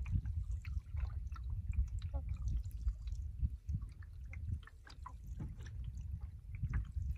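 Water lapping and dripping around a moving canoe: many small scattered splashes and drips over a steady low rumble.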